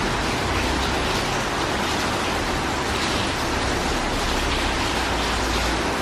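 Steady rain falling, a dense even hiss with no breaks.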